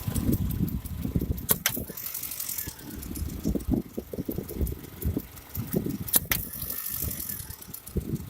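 A car running with an uneven low rattling and knocking. Two quick pairs of sharp clicks come about a second and a half in and again around six seconds.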